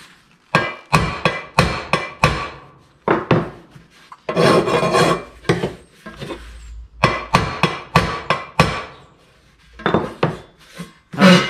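Hammer tapping a thin sheet-metal panel in quick runs of light, ringing taps: about five in the first two seconds, another run of about six later on, and a few near the end. This is knocking down the high spots that a file stroke has shown. About four seconds in, one longer scraping stroke, like a file run across the metal.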